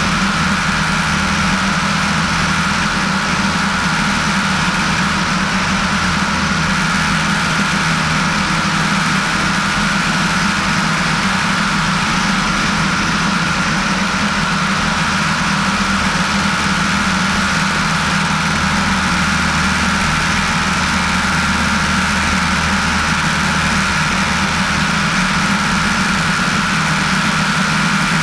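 Piper PA-18-150 Super Cub amphibian's four-cylinder Lycoming O-320 engine and propeller running steadily in level flight: a constant, unchanging drone.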